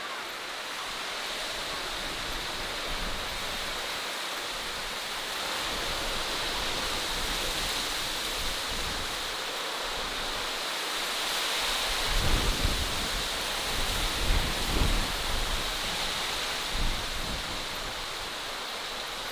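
Steady rushing outdoor ambience, with low gusts of wind buffeting the microphone about two-thirds of the way through.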